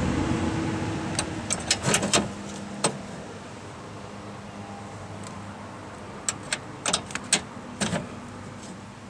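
Small sharp clicks and taps, in two quick clusters, as pop rivets are pushed into the door handle's mounting holes by hand. A steady low hum runs underneath.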